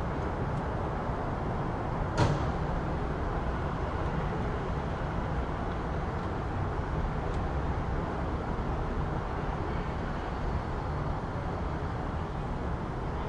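City street ambience: a steady rumble of road traffic, with one sharp knock about two seconds in.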